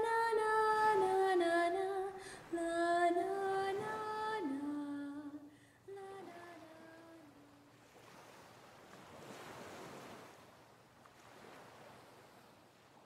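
A woman singing a soft wordless melody in stepped notes, trailing off after about five seconds with a last short phrase; then faint ocean waves washing, fading out near the end.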